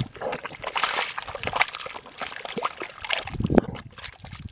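Muddy water sloshing and splashing in irregular bursts as hands, then feet, churn through a shallow mud puddle.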